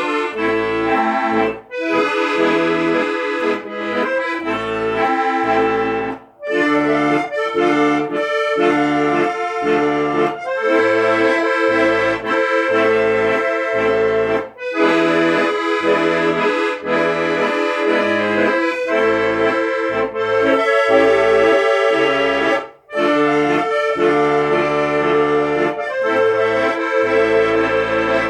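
Accordion playing a tune, with sustained melody notes over rhythmic bass chords and short pauses between phrases.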